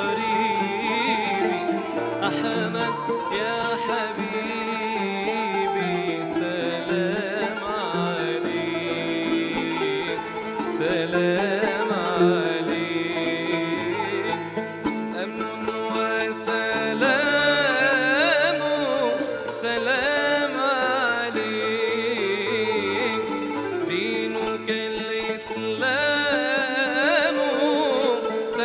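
Arabic nasheed played by a small ensemble: plucked qanun and oud, ney flute and jingling riq frame drums, with a male voice singing.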